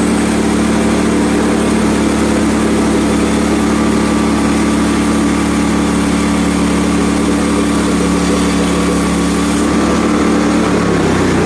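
Portable bandsaw mill's gasoline engine running at a steady speed while the blade saws through an ash burl; its pitch drops near the end.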